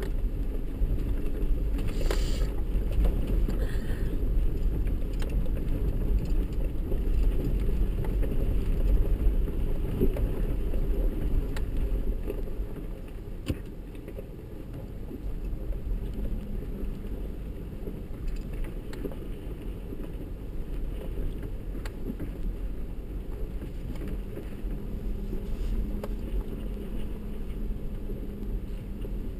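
Low, steady rumble inside the cabin of a 4x4 driving slowly over a rocky off-road track: engine running and tyres rolling over loose rock, with occasional clicks and knocks from the vehicle. The rumble eases a little about twelve seconds in.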